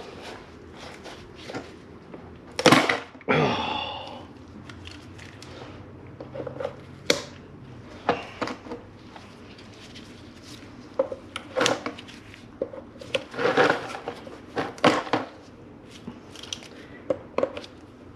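Old valve cover gasket being picked and pried out of a VW VR6 valve cover's groove, with irregular cracks, clicks and scrapes and a louder knock about three seconds in. The gasket is hard and brittle, crunching as it breaks apart, which the mechanic puts down either to sealant or to the gasket being old and dry-rotted.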